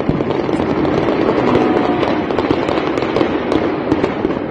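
Distant gunfire across the city: a dense, rapid run of sharp cracks and pops over a steady background din.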